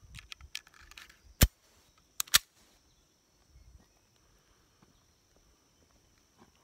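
Metallic handling clicks from a Makarov pistol: a few soft clicks, one sharp click about a second and a half in, then a quick double click a little later, typical of seating a magazine and racking the slide to chamber a round.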